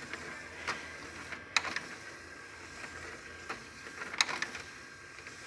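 CD mechanism of a Sony MHC-DX9 mini hi-fi system working on a disc: scattered sharp clicks and ticks over a faint whir, with a close pair about a second and a half in and again about four seconds in. The owner says the CD drive sticks now and then.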